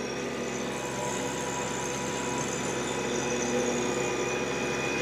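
TYM T264 compact tractor's diesel engine running under heavy load, driving a 5-foot PTO rotary tiller through hard, never-tilled clay. A steady drone with a faint whine, growing slightly louder.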